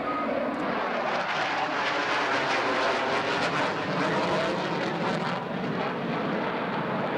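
F-15 Eagle fighter's twin jet engines at high power during a low demonstration pass and pull-up: a loud, steady jet roar with a rough, crackling edge.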